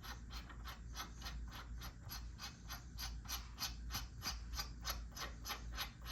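Thread-cleaning die being backed off an M10 x 1.5 bolt by hand, clicking evenly about four times a second as it turns over threads gummed with old Loctite and corrosion.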